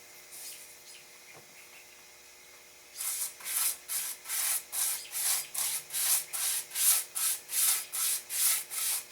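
Minwax Pre-Stain wood conditioner being rubbed onto a carved white pine sign: quick, even back-and-forth strokes of the applicator across the wood, about three a second. The strokes start about three seconds in.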